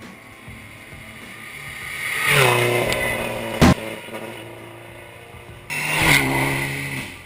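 Two rally cars pass at speed, one about two seconds in and one near the end. Each engine note rises as the car closes in and drops in pitch as it goes by; the second is a Mitsubishi Lancer Evolution's turbocharged four-cylinder. Between the passes comes a single sharp bang.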